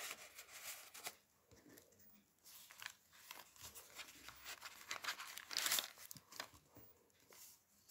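Faint rustling and crinkling of paper and card as a handmade journal's pages are turned and a card is slid out of a paper pocket, in several short bursts.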